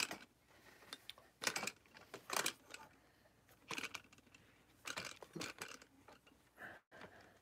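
Faint handling noise from an iPhone being fitted into a tripod mount: a scattered series of short clicks, taps and rattles.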